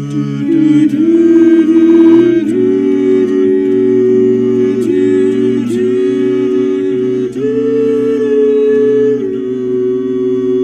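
Men's barbershop a cappella voices singing wordless, sustained close-harmony chords, moving to a new chord every second or two.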